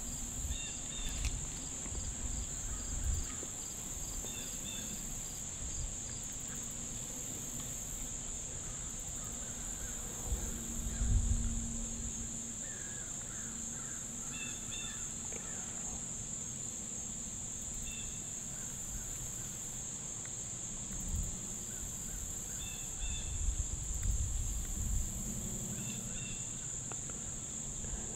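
Steady, high-pitched chorus of insects that does not let up, with a few short chirps over it and occasional low thumps and rustles.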